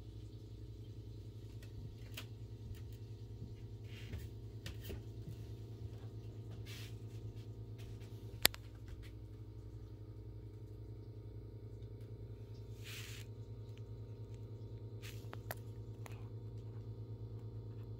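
Steady low hum with soft rustles and scattered light clicks as trading cards are handled, and one sharp click about eight and a half seconds in.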